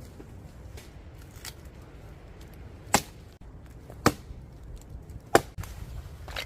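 Wood being chopped with a blade: three hard, sharp chopping strikes about a second apart, after a few lighter taps.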